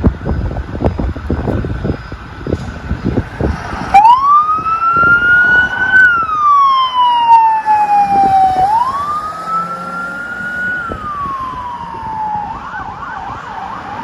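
Fire truck siren coming on about four seconds in: a slow wail that rises and falls twice, then switches to a fast yelp near the end. Before it starts there are gusts of wind noise and road rumble on the microphone.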